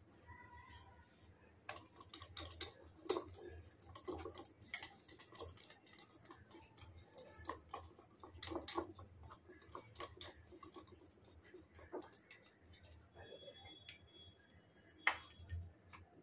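Metal wire whisk knocking and scraping against a glass bowl while mixing a thick, wet yogurt marinade: faint irregular clicks and taps, with one sharper click near the end.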